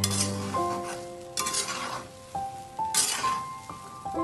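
Slotted spatula stirring and tossing shelled peanuts with salt in a dry pan, as they roast: three grainy rattling scrapes about a second and a half apart. Background music plays underneath.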